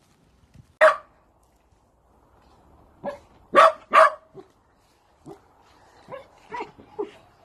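Dachshund barking in short single barks: one loud bark about a second in, a run of four about three to four and a half seconds in, then quieter barks near the end.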